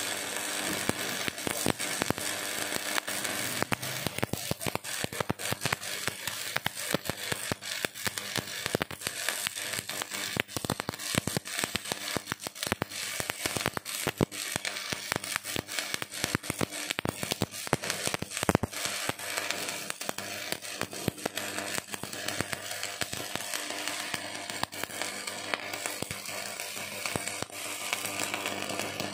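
Electric arc welding on a metal roller: a steady, dense crackle and sizzle of the arc, full of sharp pops, running without a break.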